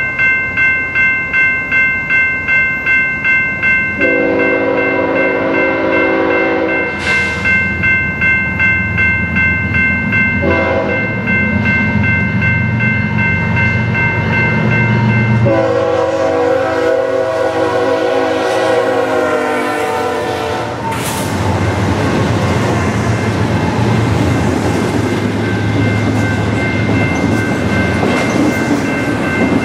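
BNSF freight diesel locomotive horn sounding several long blasts for the grade crossing as the train approaches, over the rapid ringing of the crossing bells. The horn stops about 21 seconds in, and the locomotives and wheels of the intermodal train rumble and clatter past.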